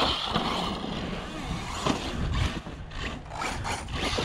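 Arrma Mojave and Talion brushless electric RC trucks driving over a dirt track, their tyres scrabbling through loose dirt, with a low rumble of wind on the microphone.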